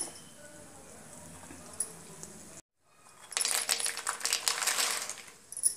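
Puffed lotus seeds (makhana) tipped from a glass bowl into a kadhai of hot ghee, crackling and sizzling with light clinks for about two seconds. Before that there is only faint quiet and a brief dead gap.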